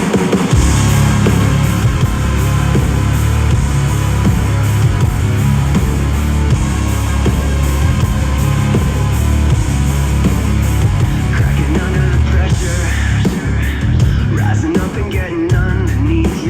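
Heavy, distorted rock music with a strong, steady bass line, played through a smart speaker and picked up by a microphone held close to it for a sound-quality test.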